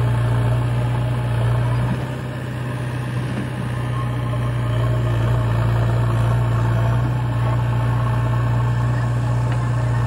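Diesel tractor and backhoe loader engines idling together, a steady low drone that dips briefly about two seconds in.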